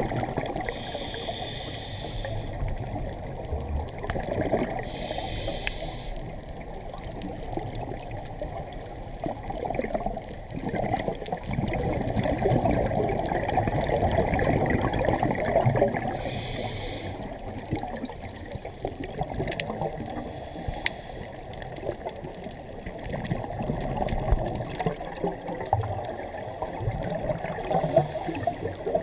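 Underwater bubbling and crackling through a diving camera's housing, with a few short hissing bursts of scuba regulator exhaust bubbles.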